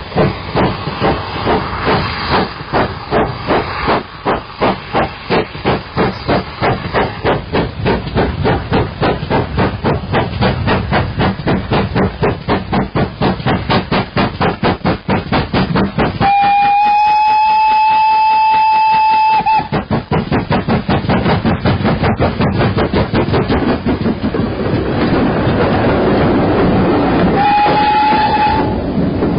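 Steam locomotive working hard, its exhaust beats quickening as it gets away. It gives one long whistle blast just past the middle and a short one near the end.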